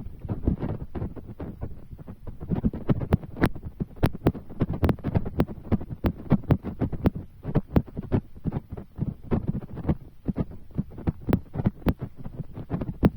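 Rain striking close to the microphone: a dense, irregular patter of low thuds, several a second, with some sharper hits.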